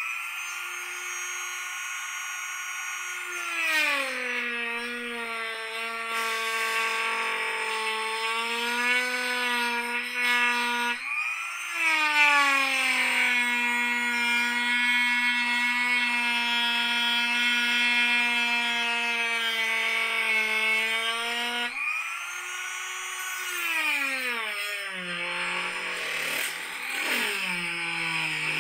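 Dremel rotary tool with a one-inch cutoff wheel cutting 1/8-inch smoked plexiglass: a high, steady motor whine that drops in pitch as the wheel bites into the plastic. The pitch rises again twice, about 11 and 22 seconds in, as the wheel comes free, then falls back as cutting resumes.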